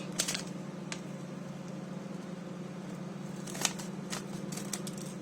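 Rustling and a few light clicks from a soup sachet as powder is shaken out and weighed, over the steady hum of a running microwave oven.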